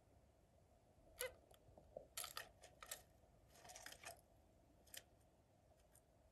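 Zebra finches in a nest box giving a few faint, short calls and peeps, scattered over several seconds, with a brief scratchy sound around the middle.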